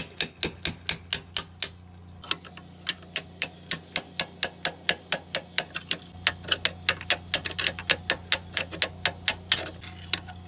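Rapid, even hammer taps, about four or five a second with a short pause about two seconds in, driving the pin out of a small lawnmower engine's piston.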